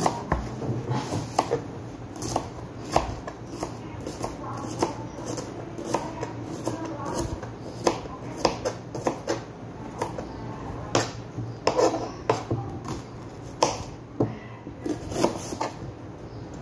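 Kitchen knife dicing onion on a plastic cutting board: uneven knocks of the blade on the board, about one or two a second.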